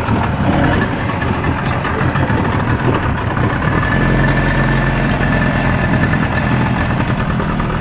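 Small fishing boat's motor running steadily at a low, even speed.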